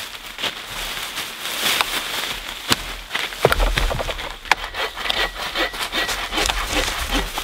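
Hand saw cutting through dead wooden poles in back-and-forth strokes, with sharp cracks of dry wood and crunching of dry leaves underfoot. The strokes come thick and fast in the second half.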